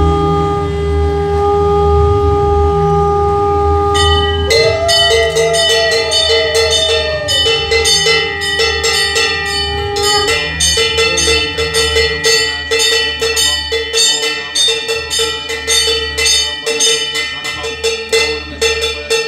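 A conch shell blown in one long held note that wavers in pitch for a few seconds and stops about ten seconds in. From about four seconds in, a hand bell is rung rapidly and continuously.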